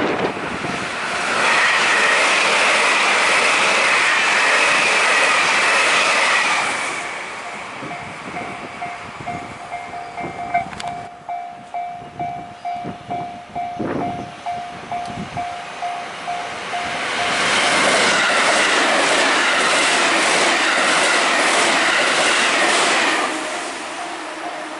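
Two electric trains passing close by, one after the other, each a loud rush of wheel and track noise lasting about six seconds. Between the passes, and again near the end, a steady tone pulses about twice a second.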